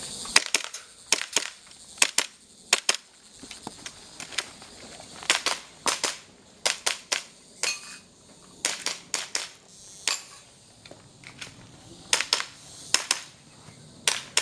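Airsoft pistol firing through a shooting stage: sharp shots mostly in quick pairs about a fifth of a second apart, in bursts with short pauses between target positions.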